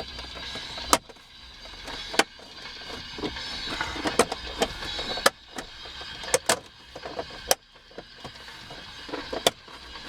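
Plastic dash trim panel being pried off a 2009 Dodge Ram: its retaining clips and tabs pop loose in sharp snaps every second or two, over plastic rubbing and creaking as the panel is worked around its edge.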